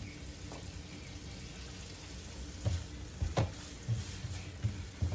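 Ground beef and peppers frying in a pan, a steady sizzle, with a spatula knocking and scraping against the pan several times in the second half.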